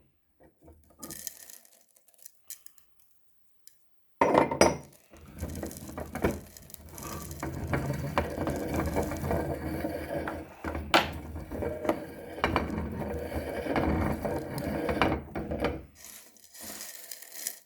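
Meat grinder grinding spaghetti: a sudden clatter about four seconds in, then continuous rattling and clicking of the grinder's mechanism that stops near the end.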